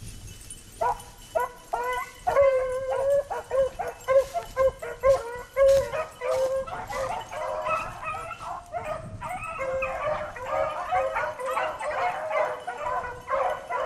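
A pack of beagles baying on a rabbit's scent trail, in full cry. The first bawls start about a second in, and from about halfway the voices of several hounds overlap into a steady, continuous chorus.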